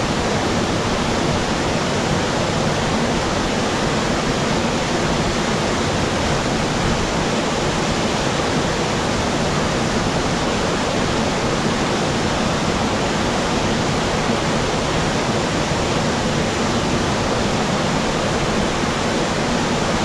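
Waterfall pouring into its pool, heard from close to the water's surface: a loud, dense, unbroken rush of falling water that stays steady throughout.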